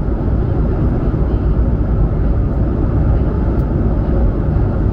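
Steady low rumble inside the cabin of an Airbus A220-100 on the ground before takeoff: its Pratt & Whitney geared turbofans and the cabin air system, heard as an even drone with no change in pitch.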